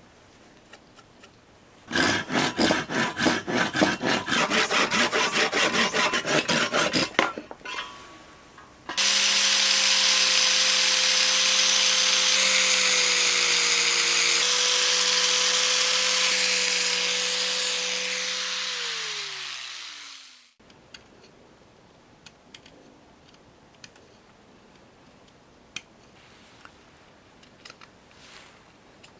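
Rapid back-and-forth strokes of a hand tool on a wooden block held in a vise, then an angle grinder's abrasive disc running loudly against the wood with a steady whine. The grinder is switched off and spins down with a falling pitch, and faint knife scrapes follow as the wood is whittled.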